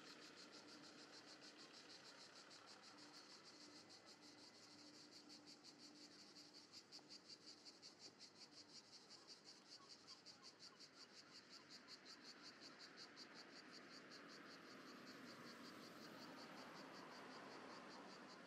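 Faint, fast shrilling of cicadas, pulsing evenly about five times a second, over light traffic noise, with a car passing near the end.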